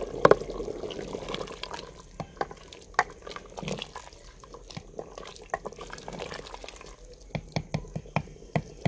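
Wooden spoon stirring a thin, steaming potato-and-aubergine curry in a clay pot: wet sloshing of the gravy, with repeated knocks and scrapes of the spoon against the pot, coming thicker near the end.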